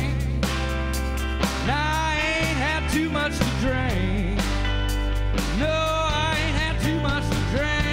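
A live band plays a song: drums and bass under a lead line of bent, wavering notes.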